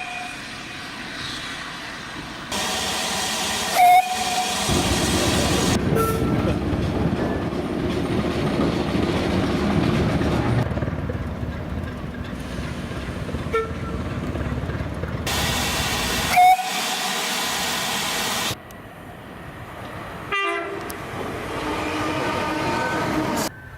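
Trains passing and running on the rails, cut together as several short clips, with brief sharp horn toots about four seconds in and again around sixteen seconds.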